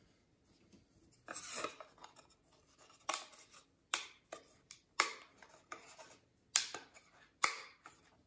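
Laser-cut plywood pieces being pressed together by hand: a brief scrape of wood on wood, then about five sharp clicks with smaller ticks between as the tabs pop into their slots.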